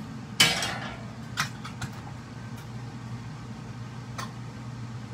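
A frying pan set down on a gas stove's metal grate: one sharp clank about half a second in that rings briefly, followed by a few lighter knocks and clicks, over a steady low hum.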